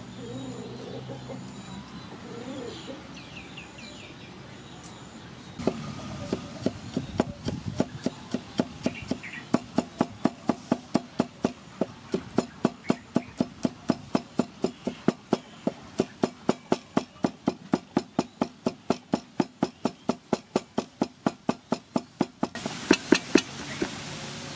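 A cleaver chopping garlic on a thick round wooden chopping block. Steady knocks start about five seconds in, roughly three a second, and a few harder strikes come near the end.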